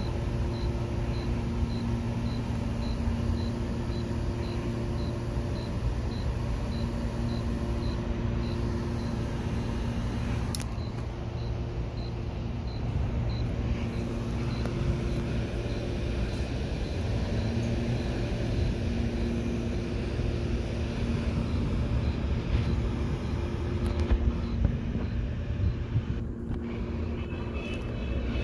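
CPTM Series 8500 electric train standing at the platform, its onboard equipment running with a steady low hum and a drone that cuts in and out every few seconds. A faint regular ticking runs through roughly the first half.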